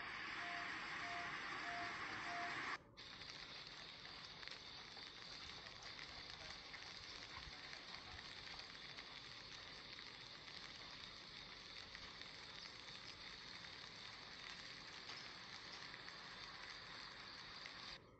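Steady hiss of heavy rain pouring onto floodwater. A faint beep repeats about twice a second for the first three seconds. The sound cuts off abruptly about three seconds in and goes on as a quieter, even rain hiss.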